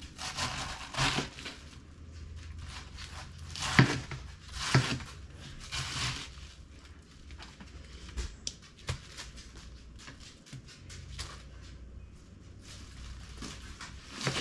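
Crisp lettuce being cut up, in a series of short, irregular crunches and crackles of leaves, the loudest two about four and five seconds in.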